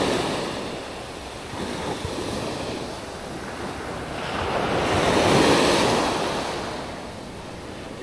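Waves washing in and breaking at the water's edge, swelling to a peak about five seconds in and ebbing again.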